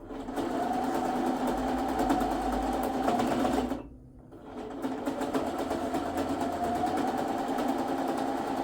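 A small electric machine running with a fast, even chatter. It stops a little under four seconds in and starts again about a second later.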